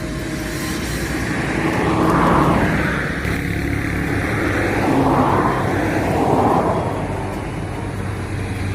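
Road traffic passing: a steady low engine hum with three vehicles going by, each a swell of tyre and engine noise that rises and fades, about two, five and six and a half seconds in.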